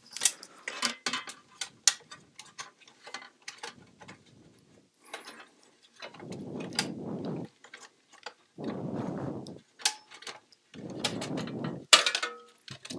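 Irregular light clicks and snaps from a car CD changer's plastic and metal case being pried apart and handled, with a few longer, softer rubbing noises in between as the case slides off the mechanism.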